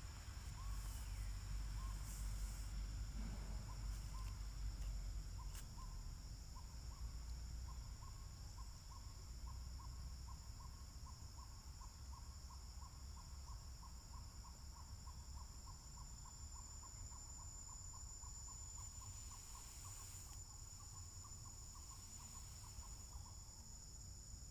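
Outdoor ambience of insects droning steadily at a high pitch, with an animal call repeating a short note about three times a second from a few seconds in until near the end. Low rumble early on.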